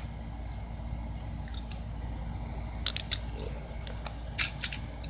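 A few light clicks as small plastic toy cars are handled, in two pairs about a second and a half apart, over a steady low room hum.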